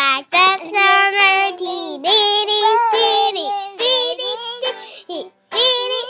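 A young girl singing loudly in a high voice, in phrases with short breaks, over a guitar played along.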